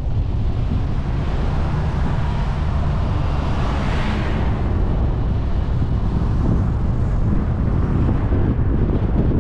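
Wind buffeting the microphone of a camera mounted on a moving car, over a steady low rumble of the car and its tyres on the road. A hissing rush swells and fades about four seconds in.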